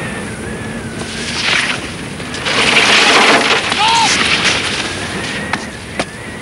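Strong blizzard wind blowing, rising to its loudest for a couple of seconds in the middle, with a brief high cry about four seconds in.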